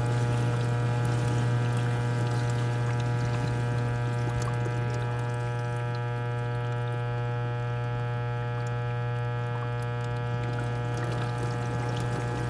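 KitchenAid KDTE104ESS1 dishwasher giving off a steady low buzz, with water moving inside it.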